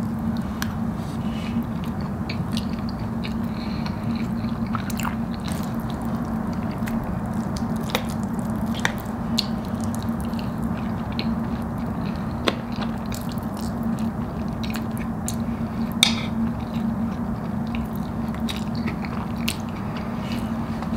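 Close-up eating sounds: a person biting and chewing forkfuls of cheese-sauced Alfredo fries, with wet mouth noises and a few sharp clicks, the loudest about twelve and sixteen seconds in. A steady low hum runs underneath.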